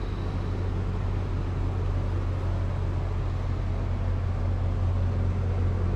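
Steady low mechanical hum, several low tones held level, with an even rushing noise over it.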